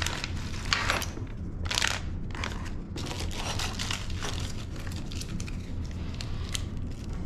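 Plastic packaging crinkling and rustling as it is handled and rummaged through, in irregular bursts that thin out to a few small clicks in the second half.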